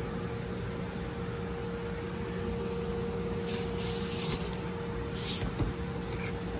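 A steady machine hum with a faint steady tone, broken by a few short high hissing sounds between three and a half and four and a half seconds in and again just after five seconds.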